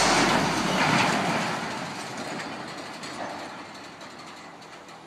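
A large steel gantry crane collapsing: a loud rumbling, grinding metal clatter that fades away over the next few seconds.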